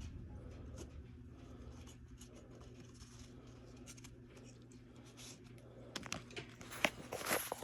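A low steady hum. Near the end come several sharp clicks and a brief scrape as the wrist wrench handle and its attachment hardware are handled.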